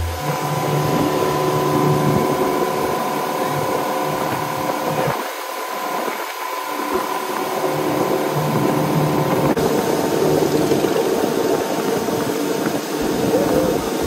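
Outboard motor running steadily at speed on a small open-sided river boat, a constant engine drone over the rush of water and wind.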